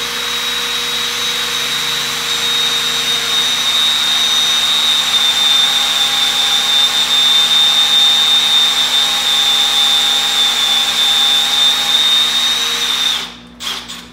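Power drill running steadily with a high whine as it bores a mortise into a wooden chair leg through a drilling guide, the bit on an extension. It stops about 13 seconds in.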